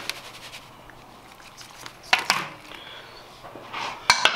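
Scattered kitchen handling sounds: a sharp knock at the start, a short scraping rustle about two seconds in, and a couple of clicks and rustles near the end, as a container of cornmeal is picked up and handled.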